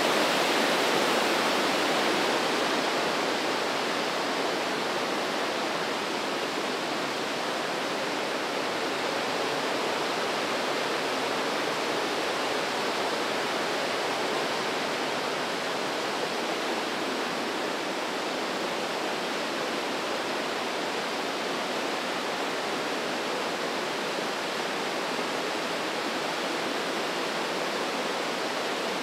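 The Breitach river rushing through the narrow rock gorge: a steady roar of whitewater, slightly louder for the first couple of seconds and then even.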